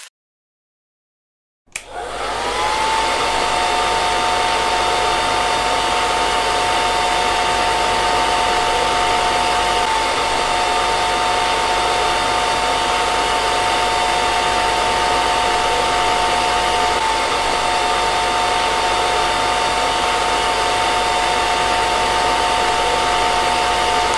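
Handheld hair dryer drying long hair. Silence at first, then it comes on with a click about two seconds in, its whine rising briefly before settling into a steady blowing hiss with a high whine.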